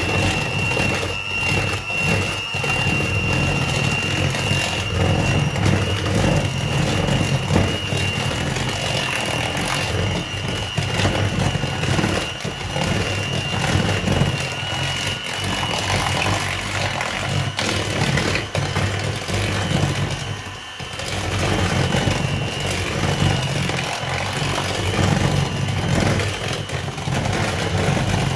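Electric hand mixer running steadily with a high whine, its beaters churning cake batter of creamed butter, sugar and freshly added eggs and vanilla in a plastic bowl. The sound dips briefly about twenty seconds in.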